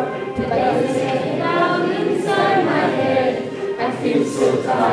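A group of voices singing together, loud and ragged, with many voices overlapping and talk mixed in.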